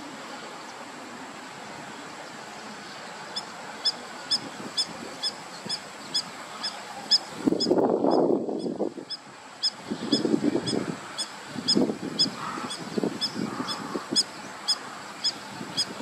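Goose honking in rough, harsh bursts from about halfway through, the loudest sound here, as from Egyptian geese. Under it a short high-pitched peep repeats steadily, about three times a second.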